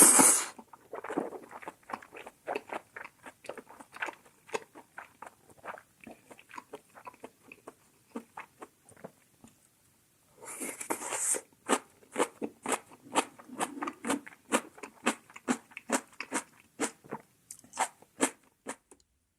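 Close-miked chewing of mala xiang guo with thick glass noodles: steady wet chewing strokes about three a second, with a loud slurp lasting about a second roughly ten seconds in.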